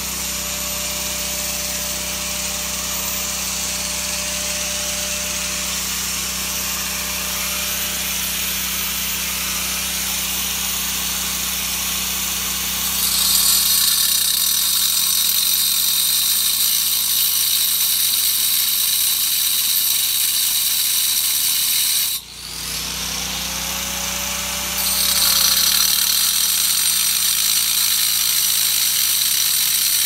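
Electric angle grinder cutting granite, running as a steady harsh grind. It gets louder and brighter about halfway through. It drops out for an instant about two-thirds of the way in, then cuts again.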